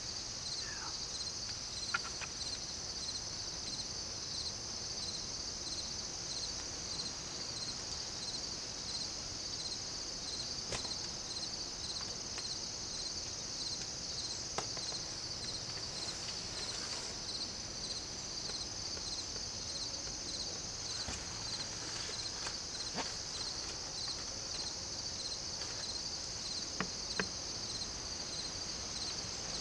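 Crickets and other insects chirring in a steady, dense chorus with a regular pulsing beat, broken by a few scattered faint clicks.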